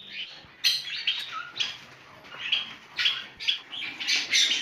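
Budgerigars chirping: a busy run of short, sharp chirps, several a second.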